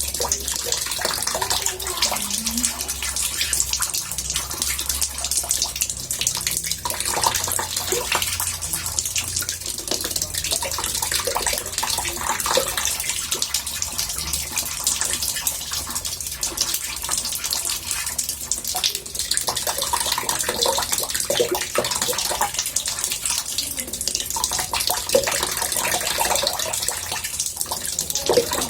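Water running and splashing into a bathtub: a steady hiss with small, irregular bubbling gurgles throughout.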